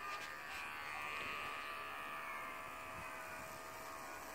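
Electric hair clippers running with a steady, unchanging buzz, held away from the hair rather than cutting.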